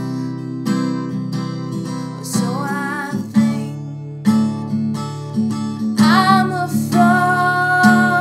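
A woman singing to a strummed acoustic guitar. Her voice slides upward about two and a half seconds in and again about six seconds in, then holds a long note.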